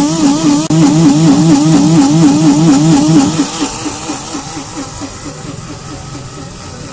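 Portable bottle mini blender's motor running with a loud, rapidly wavering whine as it blends beaten eggs, then stuttering and dropping away about three and a half seconds in.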